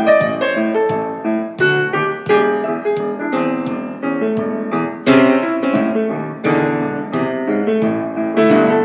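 Grand piano played solo in a blues style: struck chords and runs in a steady rhythm.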